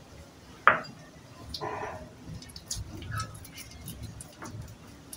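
A utensil clinks sharply once against a mixing bowl, followed by softer scraping and small clicks as flour and milk are stirred into a thick paste.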